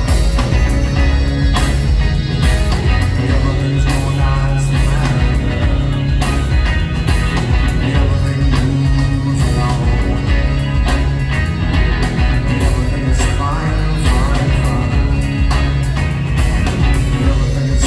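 Rock band playing live, with a heavy bass line and drums.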